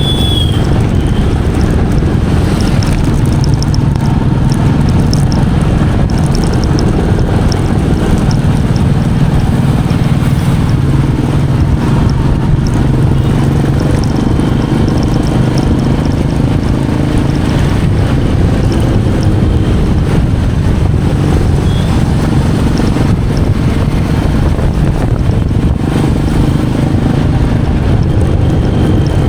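Royal Enfield Meteor 350's single-cylinder engine running steadily while riding, with wind noise on the microphone.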